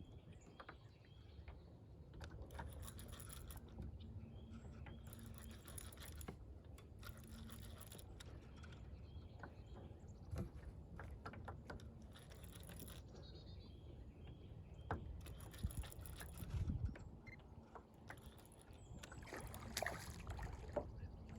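Fishing reel cranked in stretches of a few seconds while a hooked fish is played, its clicking coming and going over low wind and water rumble.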